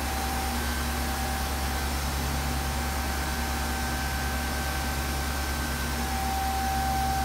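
Steady machinery hum with an even hiss and a few constant tones, the background noise of industrial equipment around a steam autoclave; one tone grows a little stronger about six seconds in.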